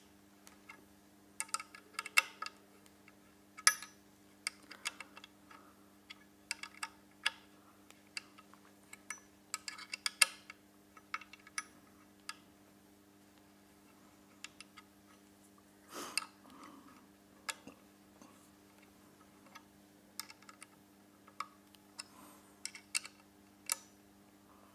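Irregular metallic clicks and taps of an Allen key working the bolts of a monitor-arm desk clamp, with the metal parts knocking as they are handled. A faint steady low hum runs underneath.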